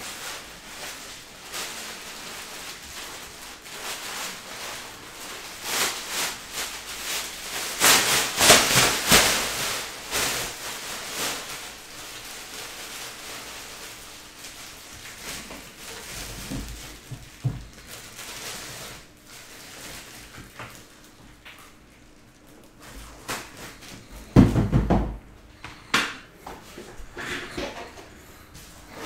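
Cardboard card boxes and their packaging being handled on a table: scattered knocks and rustling, a louder stretch of rustling about a third of the way in, and a couple of heavier thumps near the end.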